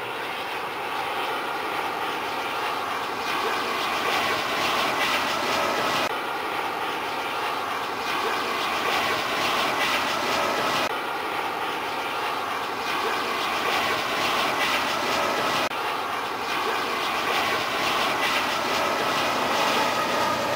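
Twin-engine Airbus A320-family jetliner flying low overhead on approach with its landing gear down: a steady rush of jet engine noise with a faint whine.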